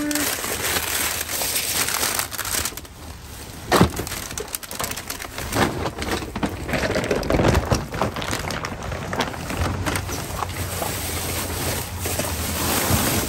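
Rummaging through wet trash in a dumpster: plastic bags and packaging rustling and crinkling, with scattered knocks and one sharp bang about four seconds in.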